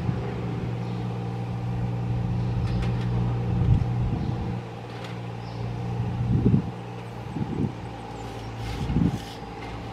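A machine engine running steadily at low speed, with a few dull thumps.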